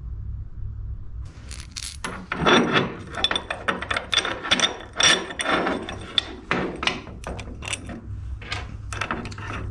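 Steel bolts, washers and flat-bar brake hanger parts clinking and rattling as they are handled and fitted together on a steel bench, a bolt being pushed through a hanger's hole. A dense run of sharp metallic clicks and clinks starts about a second in, over a low steady hum.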